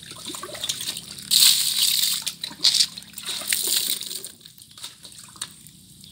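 Water pouring and splashing, loudest from about one to four seconds in, then dying away to a faint trickle.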